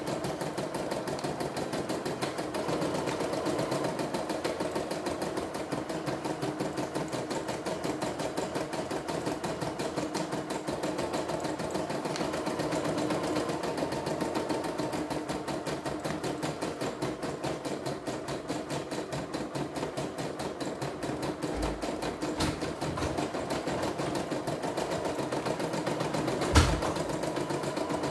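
CNY E960 portable embroidery machine sewing out a design, its needle running at a steady, rapid, even stitch rhythm. A single sharp click stands out near the end.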